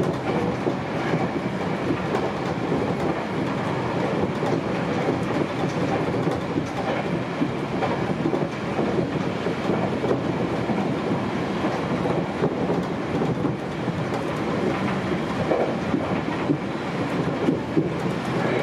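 Sanyo 5000 series electric train running at speed, heard from inside the front car: a steady rumble of wheels on rail with frequent small clicks from the track.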